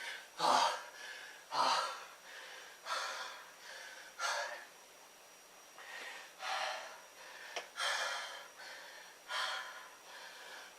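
A man breathing hard through his mouth, one loud gasping breath about every second: out of breath from a hard set of push-ups.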